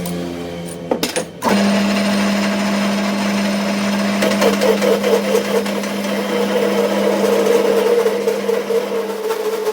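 An electric machine's motor starts about a second and a half in and runs with a steady hum. A rougher working noise rides over it and wavers in the middle before settling.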